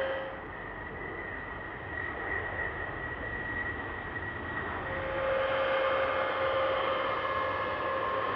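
Boeing MQ-25 Stingray drone's turbofan engine at takeoff power as the drone lifts off and climbs away: a steady whine over rushing noise. About five seconds in the whine drops to a lower pitch and grows louder.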